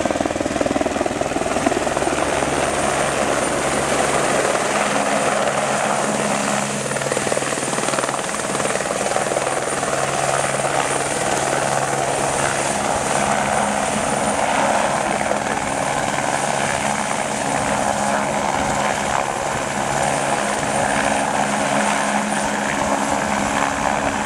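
Firefighting helicopter hovering low over water, its rotor and turbine engine running steadily at a constant loud level while it refills its tank through a hanging snorkel hose.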